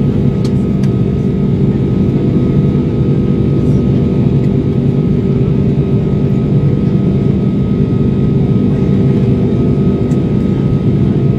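Airbus A340-600's Rolls-Royce Trent 500 turbofans at climb power after takeoff, heard inside the cabin: a loud, steady deep drone with a steady higher whine above it.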